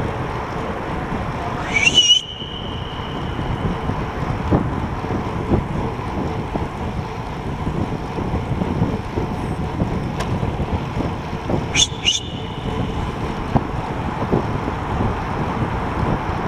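Steady rushing wind and tyre noise of a road bike riding through a road tunnel, with wind buffeting the microphone. A brief high-pitched squeal that rises then holds sounds about two seconds in, and another short pair of squeals near the end.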